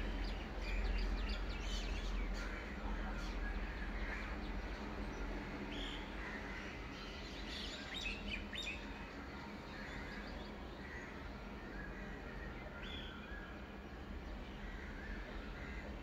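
Dawn birdsong: many short chirps and calls from several birds, with crows cawing, over a low background rumble that is loudest at the start and eases within the first second or so.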